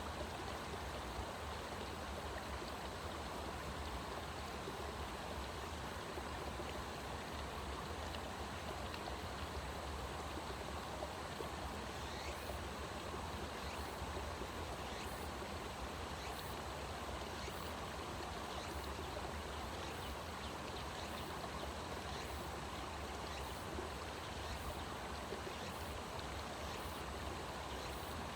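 A stream running steadily, an even rushing of water. From about halfway through, faint high ticks repeat roughly once a second.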